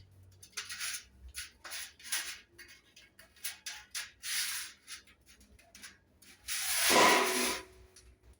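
Hand snips cutting sheet metal, a quick run of short, crisp snips, then one longer, louder rasp of the metal about seven seconds in.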